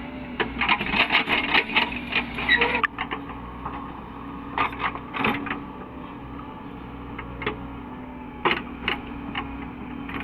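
A Caterpillar 307E2 mini excavator's diesel engine running steadily, with a quick run of metallic clattering in the first three seconds and then scattered single knocks and clanks.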